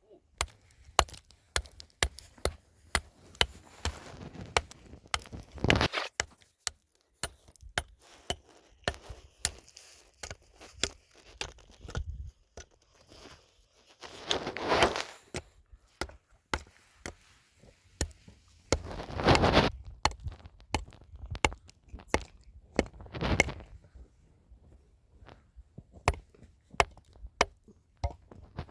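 Irregular series of sharp knocks and thuds, like hand work with wood or tools, with a few longer noisy swells between them, the loudest about fifteen and nineteen seconds in.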